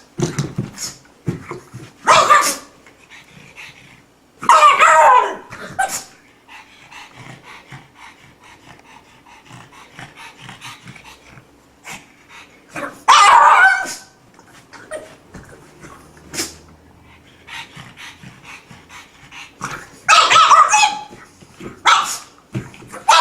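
Pug barking in about five loud bursts, each up to about a second long, with gaps of a few seconds between them.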